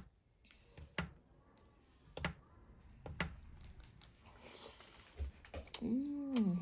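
Mukbang eating sounds: sharp clicks of cutlery and bites about once a second, with chewing and a soft slurp, and a short hummed 'mm' from the eater near the end.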